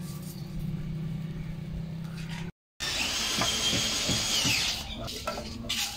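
Power drill running with a steady high whine for about two seconds, then stopping, followed by a few knocks, during work on a window-type air conditioner.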